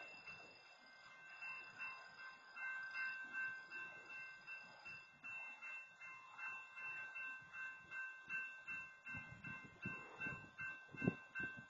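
Railroad grade-crossing warning bell ringing faintly and steadily, a pulsing electronic tone at about two beats a second. A few low thuds come near the end, the loudest shortly before it ends.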